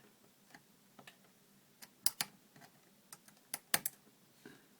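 Irregular sharp clicks and taps of small tools and plastic parts being handled while a 7-inch Android tablet is taken apart, a dozen or so, clustered around the middle and just past it.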